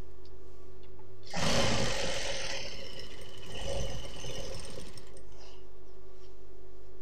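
Industrial sewing machine stitching a double-folded trouser hem in one run of about three and a half seconds. It starts about a second in, eases and picks up again partway through, then stops.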